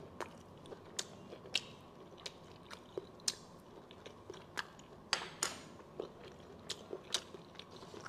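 Close-miked mouth sounds of a person chewing pig's large intestine: irregular wet clicks and smacks, two or three a second.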